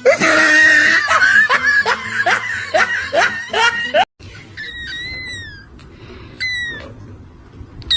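A person laughing hard in a quick run of short bursts for about four seconds. After an abrupt cut come a few short, high chirps that fall in pitch.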